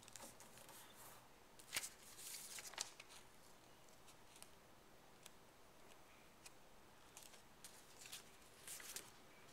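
Faint rustling and crinkling of a sheet of origami paper being handled and folded in half by hand, with a sharp click about two seconds in.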